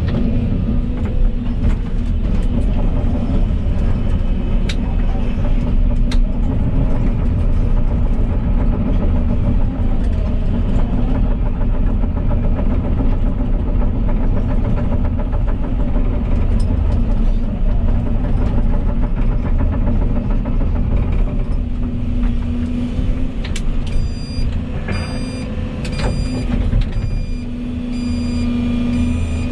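Volvo EC220E excavator's diesel engine running steadily with its hydraulics working, with a few sharp clicks along the way. Near the end a run of short, evenly spaced high beeps starts.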